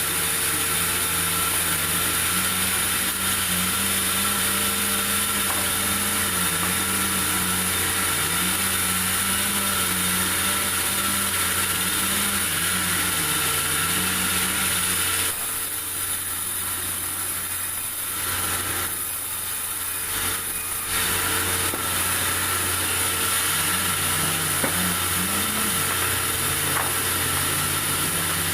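Sawmill saw running as durian wood is milled: a steady machine hum with a low engine note that wavers up and down under the load of the cut. A little past halfway it eases and goes quieter for about five seconds, then comes back to full.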